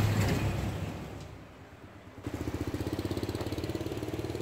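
Street traffic noise, a passing vehicle's low rumble fading away. Then, from about two seconds in, a small engine runs steadily with a fast, even putter, typical of a motorbike idling.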